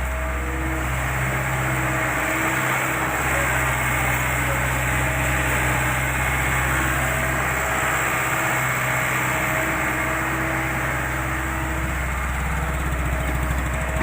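JCB machine's diesel engine running steadily.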